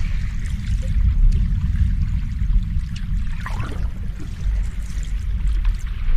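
Ocean waves washing on a shore, a steady noisy wash with a strong deep rumble underneath.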